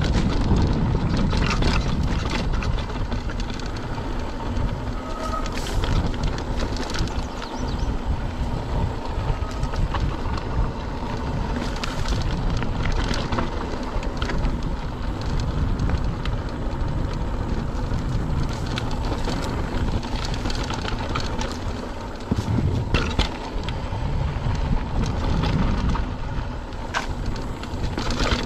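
Mountain bike rolling along a dry dirt singletrack: steady wind rumble on the action camera's microphone, with tyre noise on the dirt and scattered clicks and rattles from the bike over bumps.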